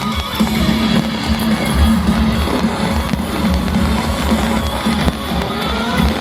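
Loud show soundtrack music with a steady drum beat and guitar.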